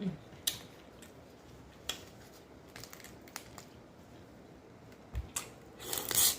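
Close-up eating sounds: a few scattered clicks and taps, then a cluster of crackly crunching and clicking near the end, as of seafood shells being broken and chewed.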